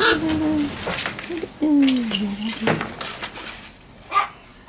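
Newspaper crackling and rustling under a young blue-and-gold macaw as it rolls off its back and scrambles to its feet. Two low, falling voice-like tones are heard in the first half.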